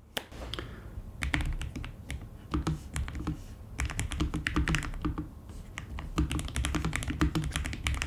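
Fast typing on a Lofree Flow low-profile mechanical keyboard: quick runs of key clicks, each with a low thud under it, starting about a second in and pausing briefly twice.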